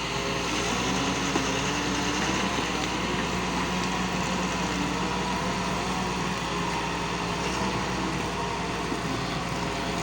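Doosan DX140W wheeled excavator's diesel engine running steadily, its pitch wavering a little as the machine works.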